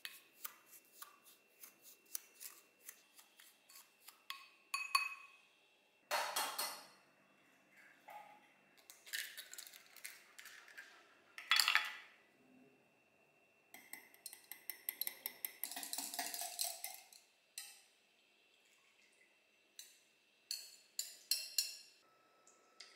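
Baking prep in glass bowls. First a wooden spoon taps and scrapes through lemon zest and sugar in a glass bowl. Then come a few short rustling rushes, and past the middle a fast run of clinks against glass as eggs are beaten, with a few more clinks near the end.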